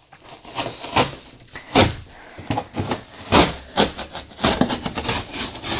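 Cardboard boxes being handled and shifted inside a large cardboard pallet box: a run of irregular thumps, knocks and scrapes, the loudest a little under 2 seconds in and again about halfway through.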